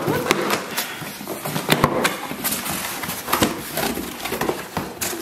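A package being opened and handled: irregular rustling, scraping and sharp knocks of the packaging.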